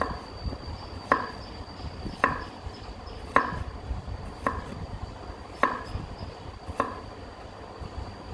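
Broad kitchen knife slicing garlic cloves on a wooden cutting board: seven evenly spaced sharp knocks of the blade on the board, a little more than one a second, over a steady thin high tone.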